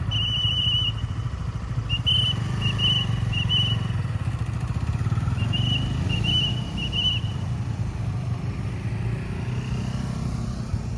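Traffic police whistle: one long blast, then two groups of three short trilling blasts, over a steady low rumble.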